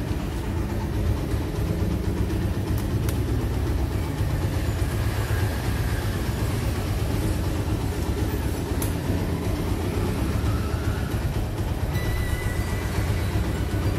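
Honda Tiger's 200 cc single-cylinder four-stroke engine idling steadily.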